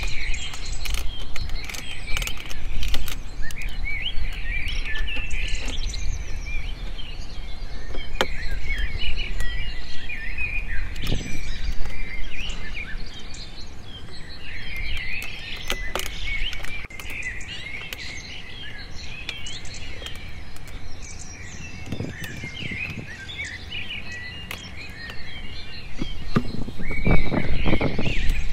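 Many small birds chirping and twittering continuously, with a few sharp clicks. Near the end come louder knocks and scrapes of a plastic water jug being handled.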